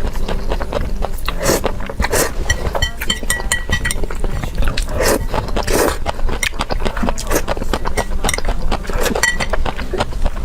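Close-miked eating: irregular wet chewing and mouth clicks, with several louder bursts of eating noise scattered through.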